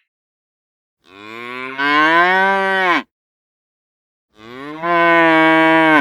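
A cow mooing: two long moos, each starting softer and swelling louder. The first bends down in pitch as it ends.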